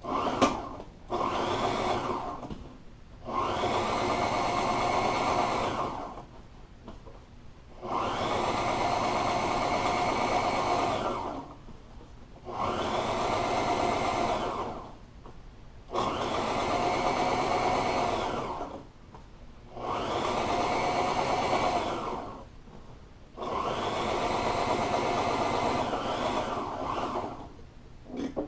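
Heavy-duty upholstery sewing machine stitching pleat lines into a vinyl seat panel. It runs in spurts of two to four seconds with short pauses between them, about eight runs in all.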